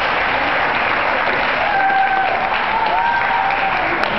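Audience applauding steadily after a welcome speech, with a held high-pitched tone over the clapping in the middle.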